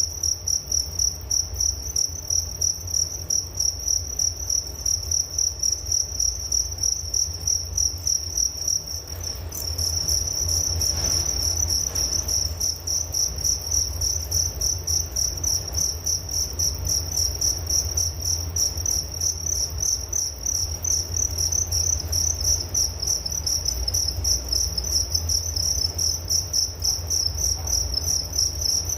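Crickets chirping: a high, pulsing trill repeating about twice a second over a low steady hum. About nine seconds in there is a brief dip, then the chirping carries on denser.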